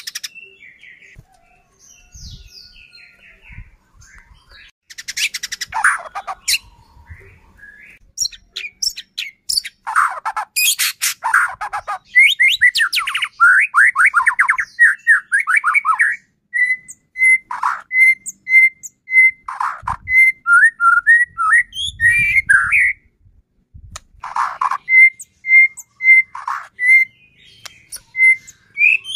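White-rumped shama (murai batu) singing a loud, varied song: quick sweeping whistles, runs of evenly repeated whistle notes, and a few harsh rasping rattles. The song is sparse at first and turns fast and continuous about halfway through.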